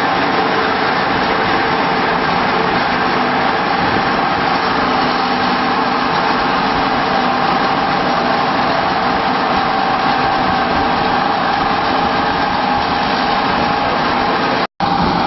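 Poultry feed pellet line running: the electric motors, belt drive and HKJ250 ring die pellet mill make a loud, steady machine din with a constant mid-pitched hum. The sound cuts out for a moment near the end.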